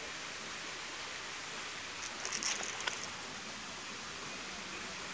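Steady hiss of outdoor background noise, with a short cluster of crackling rustles about two seconds in.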